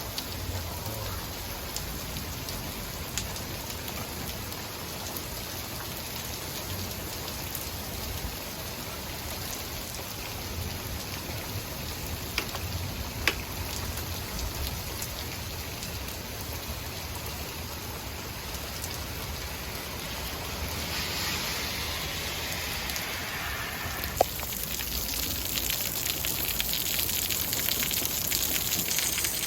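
Steady rain pouring down, with a few single sharp knocks of drops or stones striking a hard surface. The downpour grows heavier over the last several seconds.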